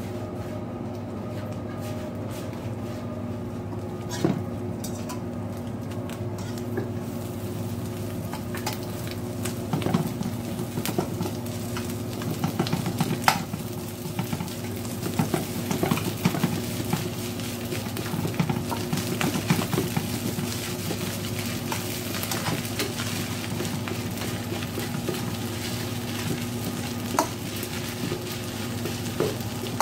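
Food frying in a stainless steel wok: a steady sizzle, with a metal spatula scraping and tapping against the pan as cooked rice is tipped in and stirred through fried onion and egg. The scraping and clicking come thickest about a third of the way in. A steady low hum runs underneath.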